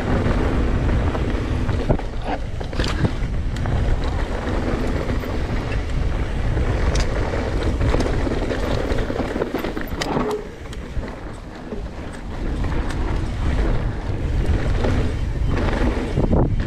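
Wind rushing over the microphone while a Santa Cruz Nomad V6 full-suspension mountain bike rolls fast down a dirt trail, its tyres on dirt and gravel, with scattered sharp knocks and rattles from the bike over bumps. The rush eases for a couple of seconds about two-thirds through.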